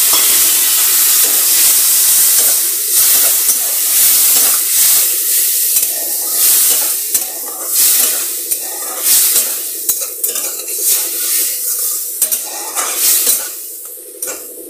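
Boiled jackfruit pieces sizzling in hot oil and masala in a kadhai just after going in, with a dense sizzle at first. A metal spatula then stirs and scrapes the pan in quick strokes, about two a second, while the sizzle dies down toward the end.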